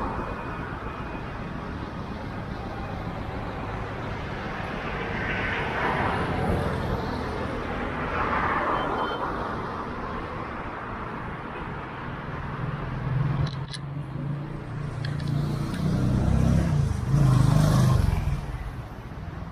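Light street traffic, then a motorbike engine coming up close and passing, growing louder over several seconds and dropping away quickly just before the end.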